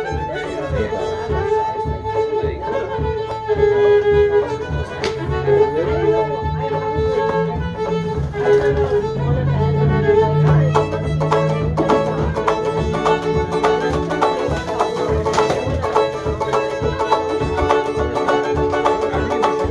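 Fiddle and banjo playing a tune together: the bowed fiddle carries the melody over the banjo's steady plucked rhythm.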